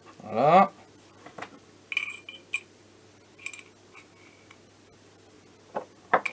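Small steel parts of a bearing-fitting tool and a wrench clinking together as they are handled, a few light ringing clinks spread out, then sharper clanks near the end.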